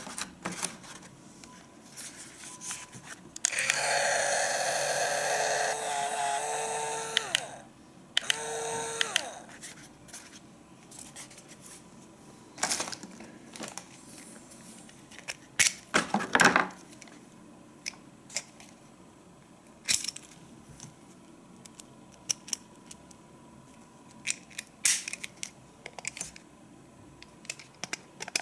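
Philips YS534 electric shaver switched on, its motor buzzing steadily for about four seconds and then winding down, then run again briefly for about a second. Short clicks and rustles of the shaver and its plastic packaging being handled fill the rest.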